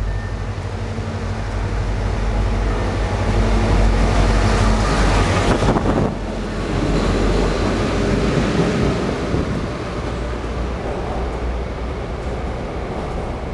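EMD G16 diesel locomotive hauling a freight train through a station at speed, its engine growing louder as it approaches and loudest about five seconds in. The engine note drops away sharply about six seconds in as the locomotive goes by, and the rumble of the coaches rolling past follows, slowly easing off.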